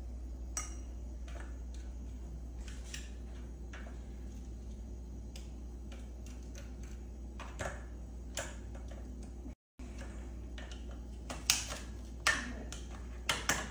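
Ice cubes being pushed out of a plastic ice cube tray: scattered small clicks and cracks, with a quick run of louder clicks near the end.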